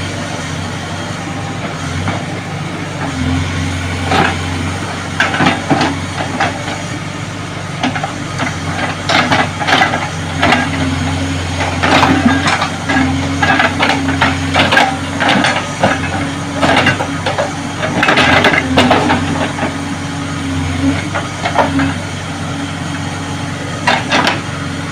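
JCB excavator's diesel engine running steadily while its bucket digs and scrapes, with irregular clusters of sharp knocks and cracks from soil, stones and debris.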